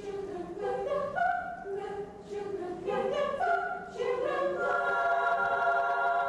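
Children's choir singing in parts: a run of short, moving notes, then a long held chord from about two-thirds of the way through.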